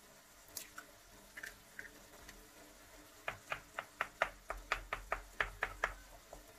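A utensil tapping and scraping in a frying pan while breaking and stirring eggs into tomato sauce: a few faint taps, then from about three seconds in a quick run of sharp clicks, about four a second, that stops just before the end.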